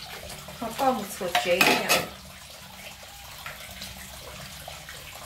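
Ceramic plates clinking and scraping against each other as they are washed by hand, with tap water running into the sink. The clinks are loudest in the first two seconds, then fall to lighter, scattered knocks.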